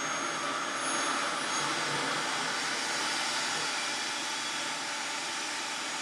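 Revair reverse hair dryer running: a steady rush of air being sucked in through its nozzle and hose as hair is drawn into it.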